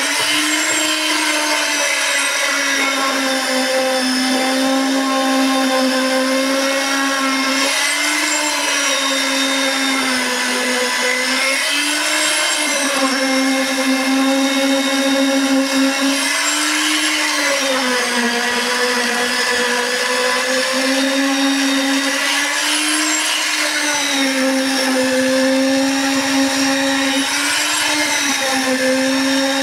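Concrete needle (poker) vibrator running in fresh concrete: a steady motor whine whose pitch sags briefly every few seconds.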